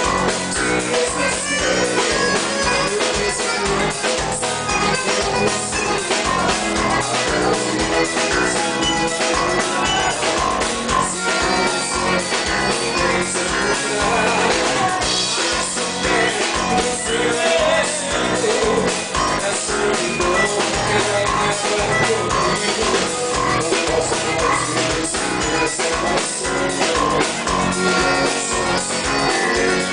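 Live dance band playing music with a drum kit keeping a steady beat.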